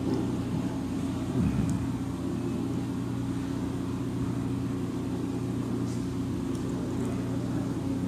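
Steady low mechanical hum of a running machine, with a brief low rumble about a second and a half in.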